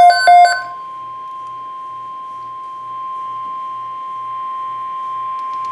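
NOAA Weather Radio 1050 Hz warning alarm tone, one steady high-pitched tone that runs on after the last of a few short, buzzy data bursts of the SAME digital alert header at the very start.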